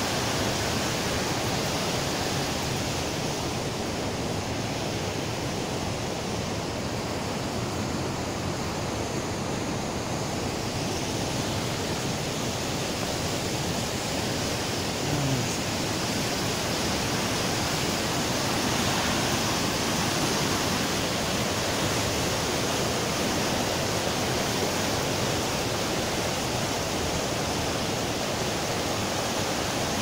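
A fast mountain river rushing over rocks in white-water rapids: a steady, even rush of water.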